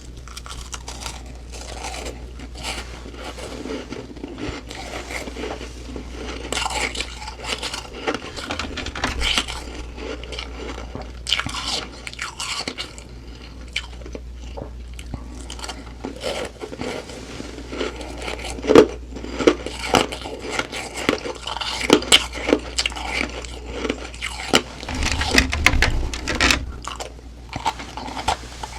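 Close-up crunching and chewing of humidifier frost ice: bite after bite of soft, crackly crunches, with sharper and louder crunches in the second half.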